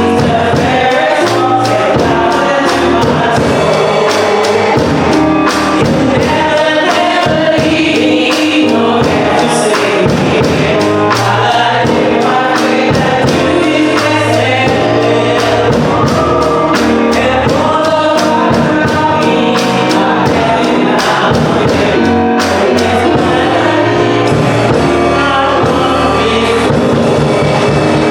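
Gospel song: a group of voices singing over a band with a steady drum beat.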